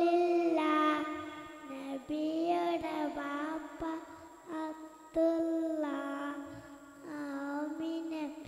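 Kindergarten children singing a group song together into microphones, in short phrases of held notes.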